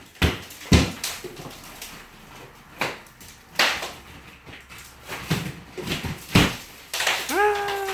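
A series of separate sharp knocks and thuds, then a short high squeak or whine, rising at its onset then held, near the end.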